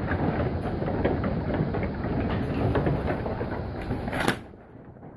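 A mob of sheep moving up a wooden loading race, their hooves clattering and knocking on the boards in a dense, continuous patter. A sharper knock comes about four seconds in, and then the clatter drops away to a brief lull.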